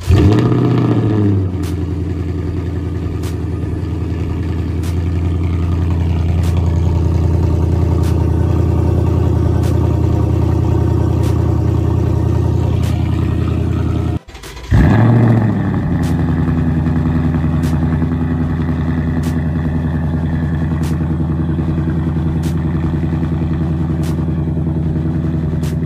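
Ford Mustang GT's 5.0 V8, run through an H-pipe with no mufflers, cold-starting with a loud flare and settling into a steady, loud idle. About 14 seconds in the sound cuts off, and the engine is started again, flaring and then idling steadily.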